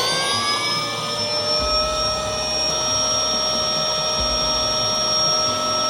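A small motor spinning up to a steady high whine and holding it evenly, cutting off suddenly just after the end.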